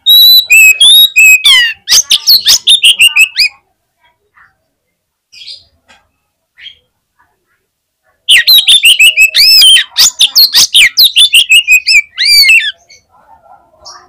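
Male oriental magpie-robin (kacer) singing its loud, aggressive 'fighter' song, the kind played to provoke other magpie-robins into singing. Two rapid bursts of whistled, sliding and harsh notes: one from the start lasting about three and a half seconds, and another starting about eight seconds in and running about four seconds, with a pause between.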